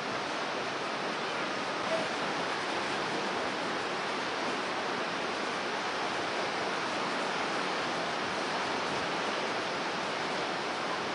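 Storm-driven surf breaking on a rocky shore: a steady, unbroken rush of waves and spray, with a brief click about two seconds in.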